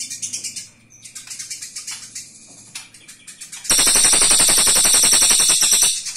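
Caged Eurasian tree sparrow chattering in quick chirps, its agitated 'fighting' call. About two-thirds in, a much louder, distorted rapid rattle runs for about two seconds.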